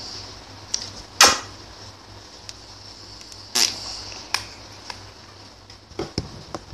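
Plastic squeeze bottle being handled: scattered sharp clicks and taps, two louder ones about a second in and midway through.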